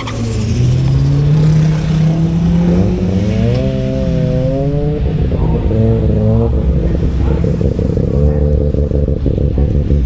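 Drag car's engine revving in short blips, its pitch rising and falling several times, then settling into a choppy, lower idle near the end.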